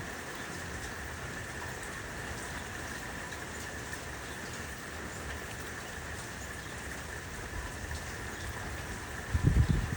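Steady rain falling, an even hiss with faint scattered drop ticks. Near the end comes a brief low rumble.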